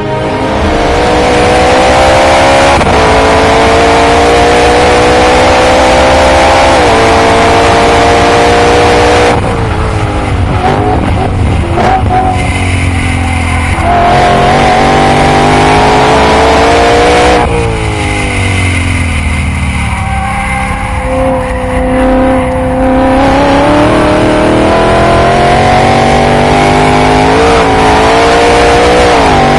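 Supercharged BMW E92 M3's S65 V8 running at full throttle on track through a titanium Akrapovic exhaust. It climbs through the gears with two quick upshifts in the first several seconds, then lifts and drops in pitch for braking about a third of the way in. It pulls again, eases off twice past the middle, and accelerates hard again near the end.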